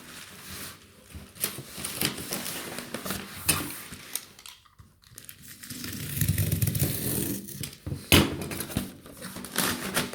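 Cardboard being handled and fitted around a packed laserdisc: intermittent rustling and scraping with light knocks, and a sharp knock about eight seconds in.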